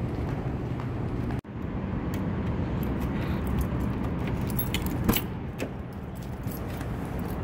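A bunch of keys jingling as a key is worked into a car's door lock, with light clicks and a sharper click about five seconds in as the door is opened, over a steady low rumble.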